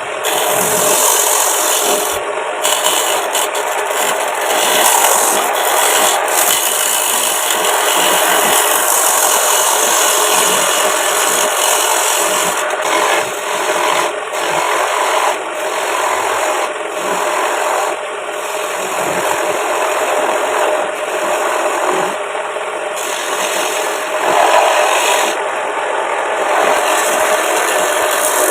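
Wood spinning on a homemade wood lathe and being worked with a tool: a continuous rasping scrape with short breaks now and then.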